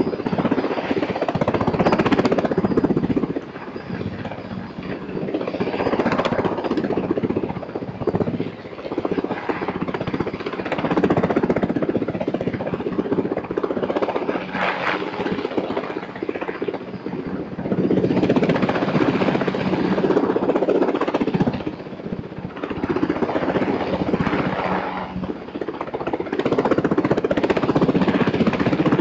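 Helicopter hovering overhead with a slung load, its rotors and engine making a continuous loud thudding noise. The noise swells and fades every four or five seconds over a steady low hum.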